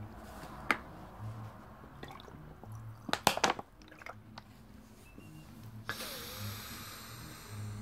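Faint mouth clicks and lip smacks close to the microphone, with a cluster about three seconds in, then a soft breathy hiss near the end.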